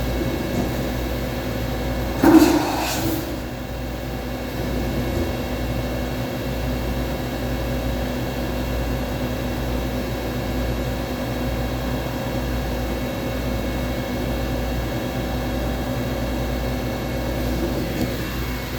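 DN Solutions DNM 5700S CNC vertical machining center running under power: a steady hum with several constant tones over a low rumble. About two seconds in comes a short, loud burst of noise.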